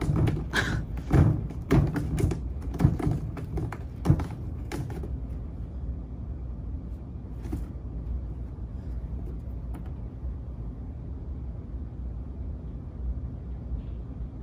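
Siamese cat batting and scrabbling at a felt wand toy on a corrugated cardboard scratcher ramp: a quick run of scratchy thumps and taps for the first five seconds or so, then a low steady rumble with a couple of faint taps.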